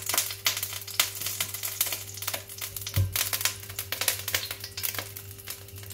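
Cooking oil crackling and spitting in a hot frying pan as it heats: a dense run of irregular small pops, over a steady low hum. A single low thump about three seconds in.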